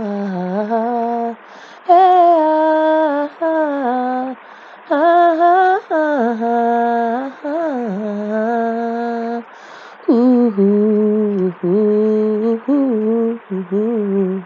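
A solo voice singing a slow worship melody on wordless held vowels, with long sustained notes that bend and slide between pitches. The phrases are broken by short pauses for breath.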